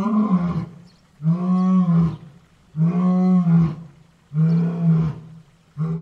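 A lion roaring in a series of calls, each about a second long, about one every second and a half. The last call cuts off abruptly.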